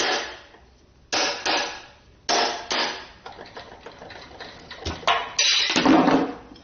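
Hammer giving a 9 mm socket light taps to drive it onto the head of a rusty 3/8-inch bolt. The taps come in short clusters of sharp metallic taps, with the loudest group near the end.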